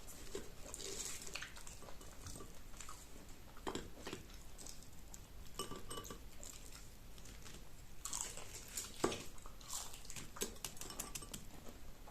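Close-up chewing of crunchy fried paprika rings: irregular crackly crunches and clicks.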